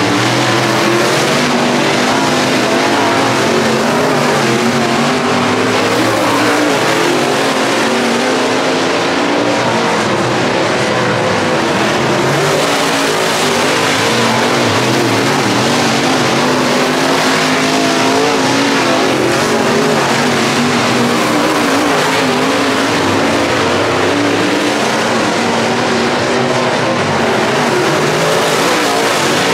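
Dirt late model race cars running on a dirt track, with several engines heard together. Their pitch rises and falls continuously as they accelerate and lift through the laps.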